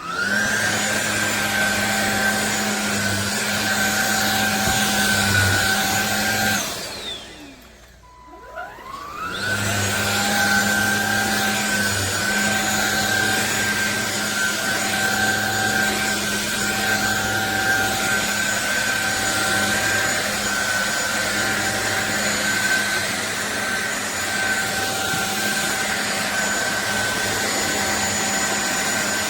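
SunSare cordless stick vacuum running: the motor whines up as it switches on and runs steadily, then winds down to a stop about six and a half seconds in. It starts up again a couple of seconds later and keeps running steadily.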